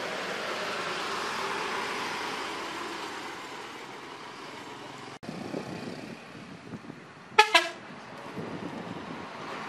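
A coach bus drives past with its engine and tyres swelling and then fading. About seven and a half seconds in, a bus horn gives two short, loud toots.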